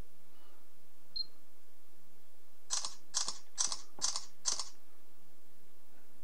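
Samsung Galaxy S3 camera shutter sound played five times in quick succession, about two a second, as Eraser Shot mode takes its burst of photos.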